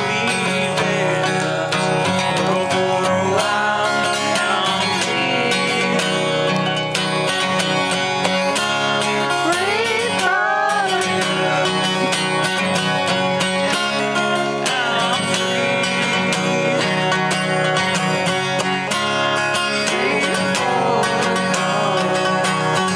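Acoustic guitar strummed in a country style, with a man singing along.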